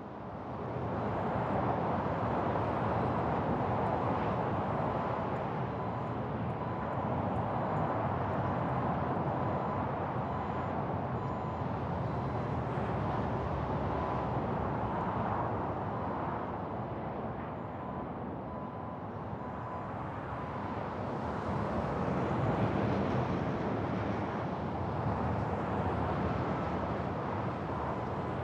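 Steady rush of freeway traffic mixed with a rough-terrain forklift's engine working at a roadside construction site. It fades in over the first second or two and swells a little about twenty seconds in, with a faint on-and-off beeping tone behind it.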